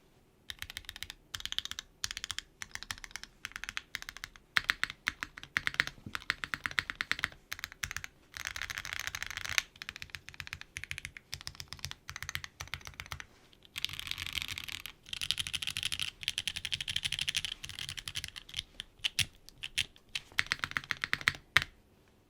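Typing on an Empyrean Mini custom mechanical keyboard with an aluminum plate, lubed and filmed Gateron Ink Black V2.1 linear switches and GMK keycaps. Keystrokes come in quick runs of fast typing broken by single strokes and short pauses, and stop just before the end.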